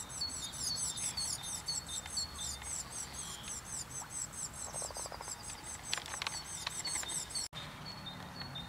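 High-pitched chirping from small animals, many short calls a second, with a brief low pulsing burst about five seconds in. The sound cuts off abruptly near the end.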